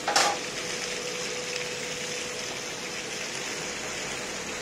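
Pan-fried buns frying in oil in a large flat pan, a steady sizzling hiss with a faint steady hum under it; metal tongs click once against the pan just after the start.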